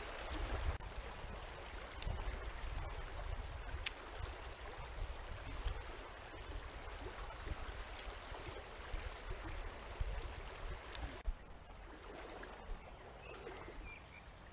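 Shallow stream running over stones in a steady rush, with a low rumble on the microphone and a few sharp clicks. The water sound shifts at a couple of cuts, growing quieter about eleven seconds in.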